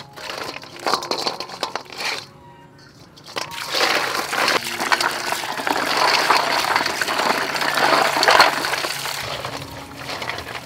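Snail shells clattering and knocking against a metal basin as they are tipped and stirred by hand. From about three and a half seconds in, water pours into the basin and hands swish and scrub the snails in it, then the splashing eases near the end.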